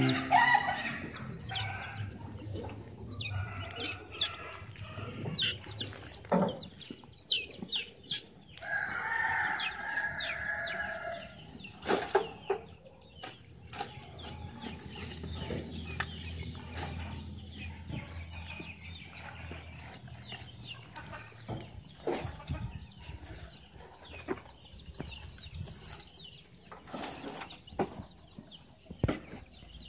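A rooster crows once, for about three seconds, roughly a third of the way in. Scattered knocks and scrapes of rubbish being cleared into a wheelbarrow are heard around it.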